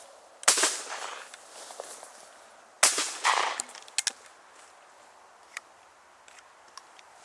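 Two shotgun shots about two and a half seconds apart, each a loud crack trailing off into a short echo. Two short sharp clicks follow about a second after the second shot.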